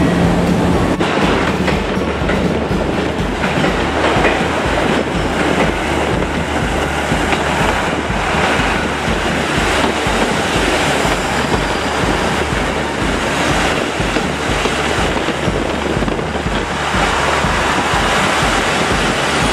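JR Central KiHa 85 series diesel express train rolling slowly along the platform, its diesel engines running and its wheels clacking over the rail joints in a steady low beat.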